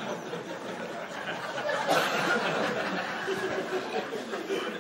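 A live audience laughing after a joke, swelling about two seconds in.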